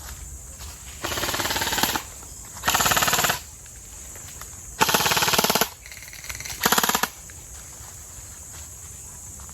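Airsoft guns firing four short full-auto bursts, each a fast rattle of shots under a second long, about a second or two apart. A steady cricket chorus runs underneath.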